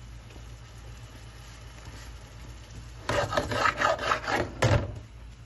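A steady low hum, then about three seconds in a quick run of scraping strokes lasting under two seconds, ending in one sharper scrape: a utensil scraping in a pan as the sauce is warmed.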